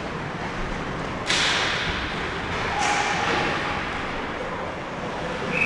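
Two sharp hits from ice hockey play, about a second and a half apart, each ringing out in the arena over the steady rink background.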